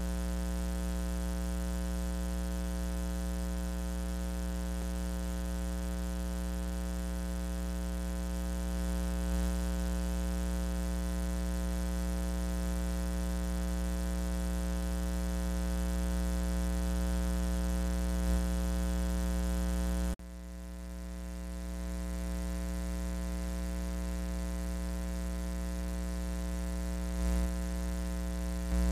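Steady low electrical hum with a buzzy edge, many even tones held unchanging. It drops away abruptly about 20 seconds in, then slowly swells back to the same level.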